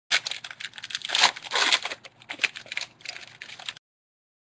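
A trading card pack's wrapper being torn open and crinkled by hand: a dense run of crackling and small snaps that stops abruptly near the end.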